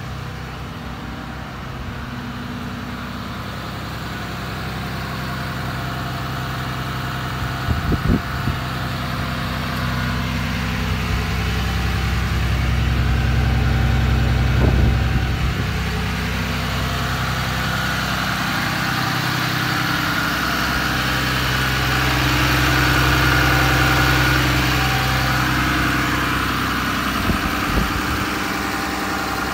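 The 6.7L Cummins turbo-diesel inline-six of a 2012 Ram 5500 idling steadily. The hum grows louder around the middle and again later, with a few brief knocks.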